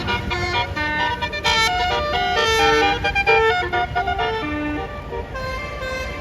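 A bus's multi-tone telolet air horn playing a quick melody of short stepped notes over the low rumble of the bus engine. The tune thins out near the end.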